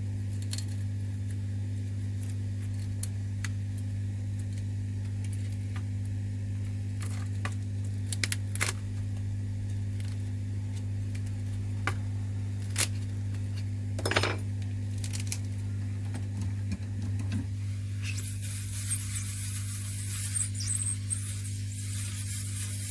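Small metal tools clicking and tapping against a phone's glass screen and frame while it is pried off, over a steady low electrical hum. Near the end a high hiss starts.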